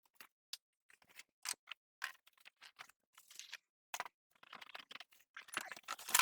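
A cardboard box and its packaging being handled and opened by hand: irregular clicks, taps and brief rustles, with a longer, louder stretch of rustling and scraping near the end.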